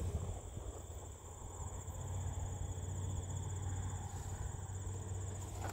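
Insects, crickets by the sound, trilling steadily in a high pitch, with a low steady hum underneath.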